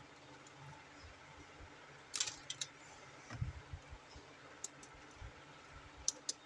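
Hands handling plastic toys and packaging: a few light clicks about two seconds in, a run of soft knocks a second later, and a couple more sharp clicks near the end.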